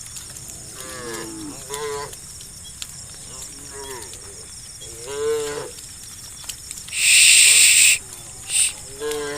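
Several cows mooing, about five drawn-out moos at different pitches overlapping and following one another. A steady high insect chirring runs underneath. About seven seconds in comes a loud hissing burst lasting about a second, the loudest sound here, followed by a short one.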